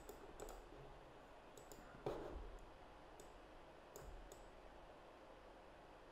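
Computer mouse clicking: a handful of short, sharp single clicks spread over the first few seconds, one louder than the rest about two seconds in, over faint room hiss.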